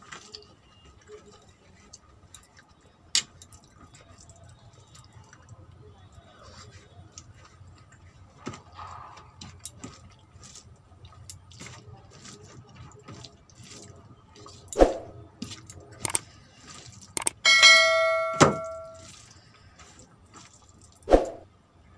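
Quiet eating by hand: small wet clicks and taps of fingers working rice on a plate and of chewing, with a couple of sharp knocks. Near the end a bell chime rings with several tones and fades, the sound effect of a subscribe-button animation.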